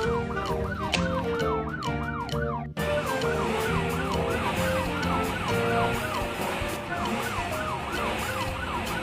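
Police siren yelping, a fast rise-and-fall repeating about three times a second, over background music with held notes. There is a brief break a little under three seconds in, after which the siren carries on slightly softer.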